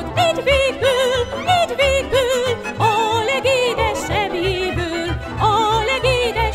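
Background music: a lead melody with wide vibrato over a rhythmic bass accompaniment.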